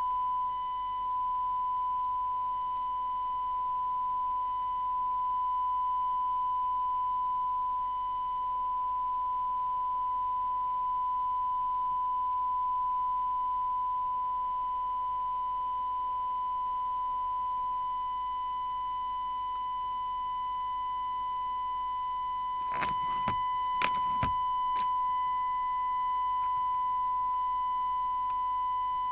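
Steady single-pitched test tone from the CB radio's loudspeaker: the signal generator's tone modulation, received during S-meter alignment. A few sharp clicks come about three-quarters of the way through.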